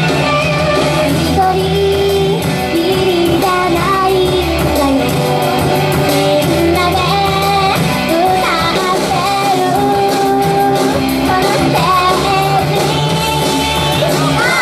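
Two young women singing a pop song together into handheld microphones, with amplified backing music under their voices.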